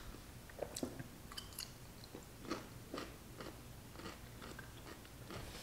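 Chewing a mouthful of crunchy dill pickle spear, heard as faint, irregular, crisp crunches a few times a second.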